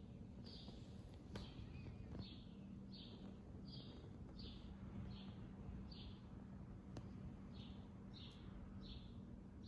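A small bird chirping over and over, short high chirps each dropping slightly in pitch, about one to two a second with a brief pause about two-thirds through. A low steady hum sits underneath.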